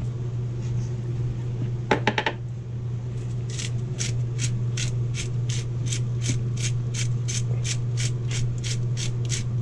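Garlic grinder twisted by hand over a bowl, giving a few quick clicks, then a steady run of short crunching grinds at about three a second, over a steady low hum.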